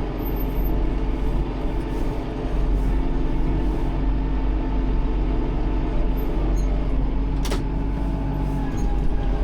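Tractor engine running steadily, heard from inside the cab, with a single sharp knock about seven and a half seconds in.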